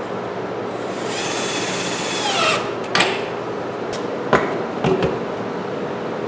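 Power drill driving a screw into a wall stud for about a second and a half, its motor whine falling in pitch as it stops, followed by a few sharp knocks.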